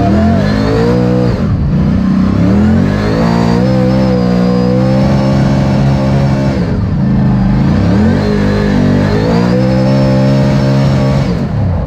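NASCAR V8 engine being driven hard. The pitch climbs and holds high, drops sharply about six and a half seconds in, climbs again, and drops once more near the end.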